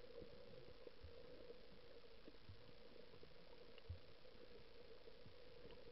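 Near silence, recorded underwater by a camera in a waterproof housing: a faint steady hum with soft, low thumps every second or so.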